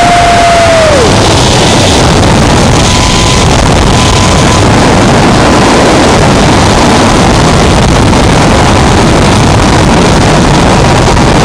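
Zipline trolley's pulleys running fast along the steel cable: a loud, steady rushing whir with wind buffeting the microphone. A high whine falls and fades about a second in, and a fainter, higher whine carries on.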